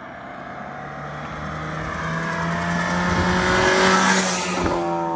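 Ford Focus RS with its turbocharged 2.3-litre four-cylinder driving up and past. The engine note climbs steadily in pitch and grows louder to a peak about four seconds in as the car goes by, then drops in pitch and fades as it moves away.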